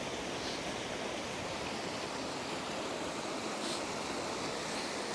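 River water rushing over rocks in a small rapid, a steady, even noise. Two faint, brief hisses rise over it about half a second in and again near four seconds.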